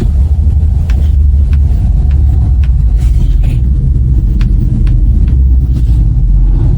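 Steady low road rumble inside a moving Toyota Noah 80-series minivan, with a sharp tick or creak every second or so: the abnormal noise from the sheet-metal structure of a body pillar.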